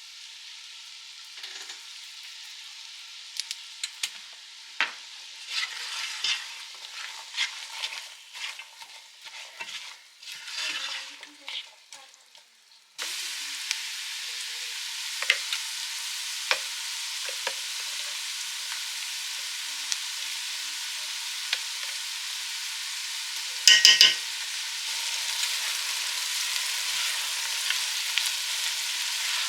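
Food frying in a pan, with the clicks and scrapes of a utensil stirring it. About halfway through, a louder, steady sizzle sets in suddenly, and near the end there is a brief loud clatter.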